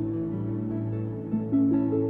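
Instrumental background music: a slow melody of held notes over a sustained low note.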